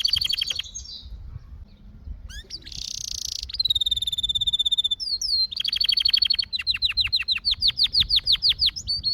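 Domestic canary singing: fast rolling trills and a held whistled note, then a long run of quick falling notes.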